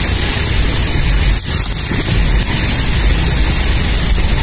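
Steady, loud hiss with a low rumble underneath and no separate events: outdoor background noise.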